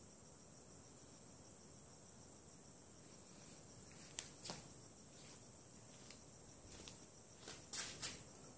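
Crickets chirring steadily at night, a thin high-pitched drone. From about four seconds in, a handful of short sharp clicks and taps cut in, the loudest two close together near the end.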